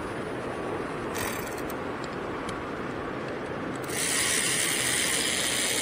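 Power ratchet running in the new retaining bolts for the camshaft solenoids, with a hiss. There is a short run about a second in, then a longer, louder run from about four seconds in.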